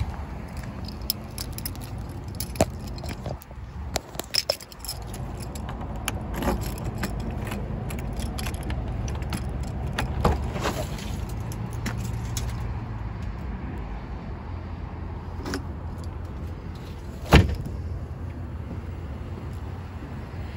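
A 2019 Honda Ridgeline's 3.5-litre V6 idling as a steady low hum, with clicks and rattles from the latch and lid of the in-bed trunk being handled and one loud thump about 17 seconds in.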